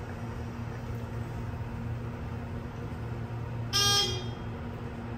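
ThyssenKrupp Oildraulic hydraulic elevator car descending with a steady low hum, then a short, higher-pitched buzzy arrival tone sounding once, a little under four seconds in, as the car reaches floor 1.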